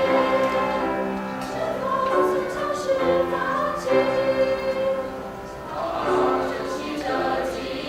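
A student choir singing in harmony, holding long sustained notes that shift every second or so. The sound eases briefly a little past the middle, then swells again.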